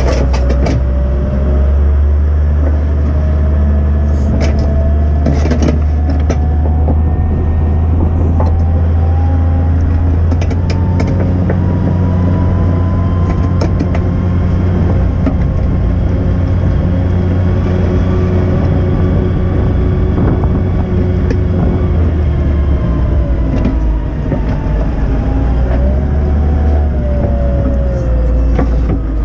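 Volvo L60E wheel loader's diesel engine running steadily under load while it drives and pushes snow, a deep continuous rumble with a whine that slowly rises and then falls. A few sharp clicks or knocks about four to six seconds in.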